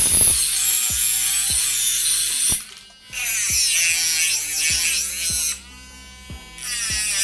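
Cordless mini rotary tool running at high speed with a high whine, first cutting through a phone circuit board, then its grinding-stone bit grinding the edge of a steel knife blade. The whine drops out briefly twice. Background music with a steady beat runs underneath.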